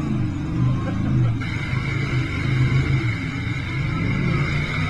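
Jet boat's engine running hard through river rapids, its low note rising and falling, over a rush of water and wind. A steady high tone comes in about a second and a half in.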